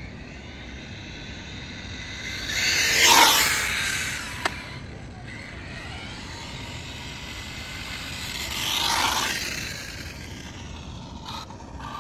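RC car passing the ground-level microphone twice, about three seconds in and again around nine seconds, its whine swelling and dropping in pitch as it goes by. A single sharp click follows just after the first pass.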